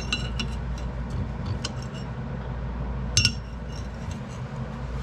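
Light metallic clinks of a steel brake caliper mounting bracket being handled and set against an anvil, with one sharper ringing clink about three seconds in, over a steady low hum.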